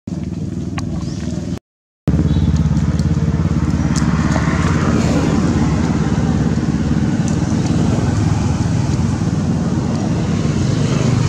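A motor engine running steadily, a low, even drone that does not change in pitch. The sound cuts out completely for about half a second near the two-second mark, then comes back just as before.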